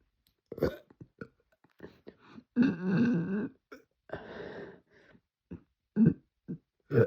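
A young woman burping from gulped Sprite: one long, low burp about two and a half seconds in, followed by a second, noisier one, with short throat sounds before and after.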